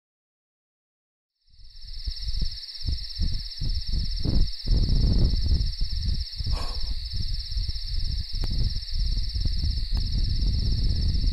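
Crickets chirping in a steady, high, finely pulsing chorus, starting about a second and a half in, with low rumbling gusts of wind buffeting the microphone.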